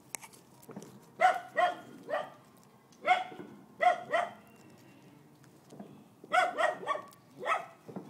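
A dog barking repeatedly in short bursts of one to three barks, about ten in all, with a pause of about two seconds in the middle.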